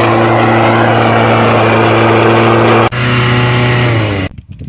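A small engine-driven machine runs steadily at high speed with a dense grinding hiss, typical of a rail grinder or abrasive cutter working on the rail at a weld. Near the end its pitch sags and it cuts off.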